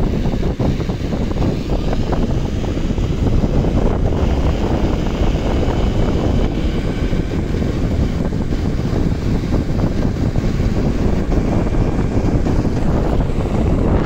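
Wind buffeting the microphone while riding fast down an asphalt road: a loud, steady, rumbling rush.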